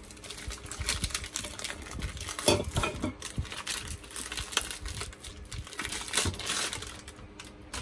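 Plastic bag of frozen corn on the cob crinkling as the frozen pieces are shaken and pulled out and dropped into a stainless steel pot, with scattered knocks and clicks as they land.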